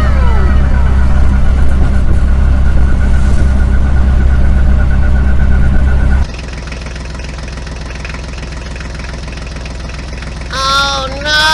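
A truck engine runs loud and steady, then cuts abruptly to a quieter idle about six seconds in. Near the end a high voice calls out twice.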